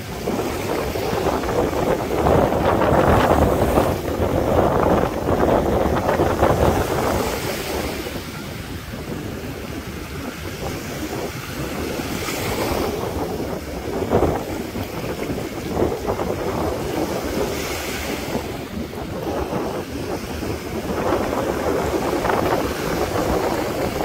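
Sea surf breaking and washing up the beach, swelling and easing, with a couple of brief hissing washes. Wind buffets the microphone throughout.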